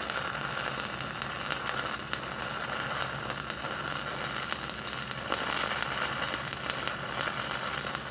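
Stick welding arc running a cap pass along the bottom of a 6-inch steel pipe: a steady crackling hiss with frequent sharp pops.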